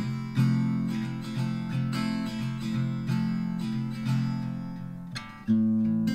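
Background music: strummed acoustic guitar chords changing every second or so, with a loud fresh strum near the end.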